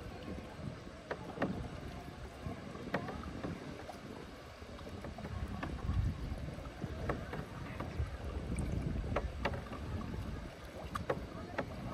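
Wooden paddle dipping and pulling through calm water beside a bamboo raft, with scattered small splashes and drips, over a low rumble of wind on the microphone.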